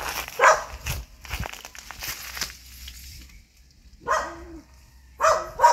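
A dog barking: three short barks, one about half a second in and two close together near the end. Dry crackling rustles fill the gap between them.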